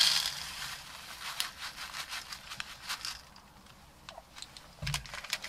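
Paper packet of Quaker instant oatmeal being torn and shaken out into a bowl: the paper crinkles and rustles, loudest at the start, with many small crackles. A dull thump comes near the end.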